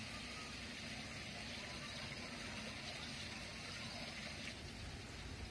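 Steady outdoor background noise, a faint even hum with no distinct events.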